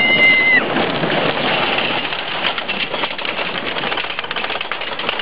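Wooden roller coaster train rattling along its track at speed, a dense steady clatter. A rider's high held scream carries over from before and cuts off about half a second in.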